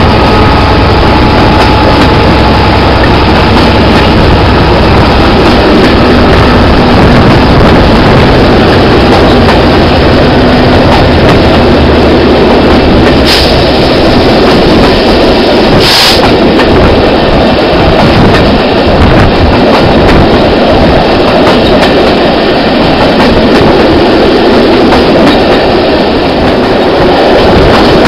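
Train running at speed, heard from an open coach window: wheels on the rails and rushing air, with the Class 66 diesel locomotive's GM two-stroke V12 engine working under power, its note fading about halfway through. Two short sharp clicks come about halfway through.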